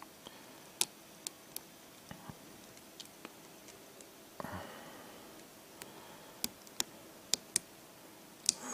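Steel lock pick clicking against the pins and keyway of a rusty Abus 85 padlock's five-pin tumbler cylinder: about a dozen short, sharp metallic clicks at irregular intervals as the pins are probed and set under tension.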